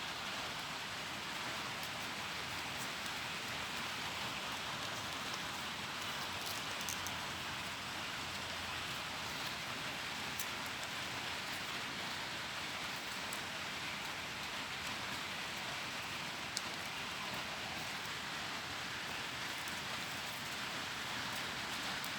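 Steady, even hiss with a few faint ticks now and then.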